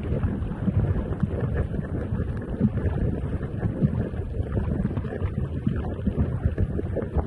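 Wind buffeting an action camera's microphone, a low, uneven rumble, as the rider moves over the water on a hydrofoil board.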